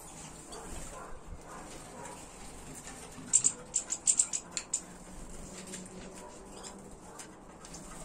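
Small songbirds in an aviary giving a quick run of about eight short, high chirps about three seconds in, lasting about a second and a half, over a faint background.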